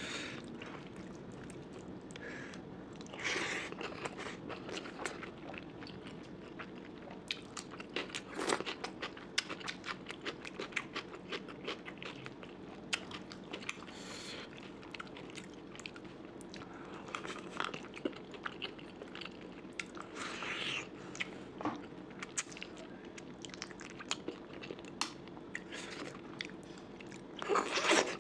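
A person eating close to the microphone: steady chewing full of small wet clicks, with a handful of louder crunching bites spaced several seconds apart.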